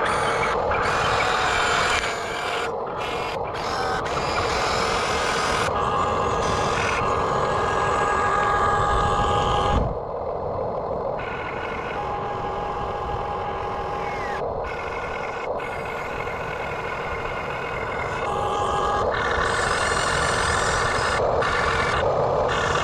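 Remote-control backhoe excavator working: a steady mechanical whir with pitched tones that start and stop every few seconds.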